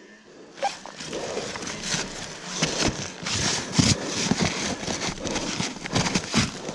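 Deep snow crunching and scraping close to the microphone, an irregular run of rustles and soft knocks with no engine running.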